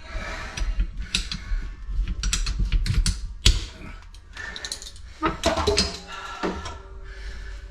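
Rapid irregular clicking and rattling of tools and metal parts being handled during plumbing work, with a single heavy knock about three and a half seconds in.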